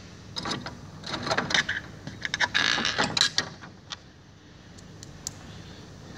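Small metal clicks and scraping of a T-handle hex key and loose screws being handled against the steel plate of a wall-bed mechanism. The clicks are busiest in the first half, with a denser scraping rattle about two and a half to three and a half seconds in, then things go quieter.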